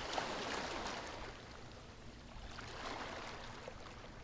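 Ocean waves washing on a shore, a soft steady wash that swells in the first second, eases, and builds again about three seconds in.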